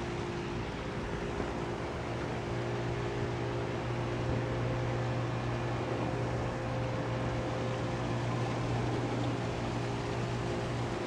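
A steady low mechanical hum with a few fainter steady tones above it, over a constant hiss.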